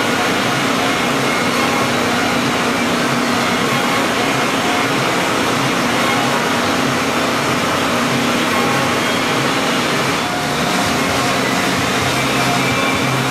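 C.R. Onsrud F98HM25 five-axis CNC hybrid mill running steadily: the spindle turning a long end mill as it cuts Ren foam, an even hiss with a steady low hum underneath, dipping slightly about ten seconds in.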